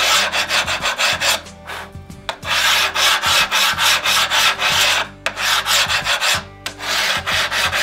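Coarse-grit diamond hand file rasping back and forth along the cut edge of a natural stone tile in repeated strokes with short pauses between them, grinding down the jagged edge and putting the bevel back on.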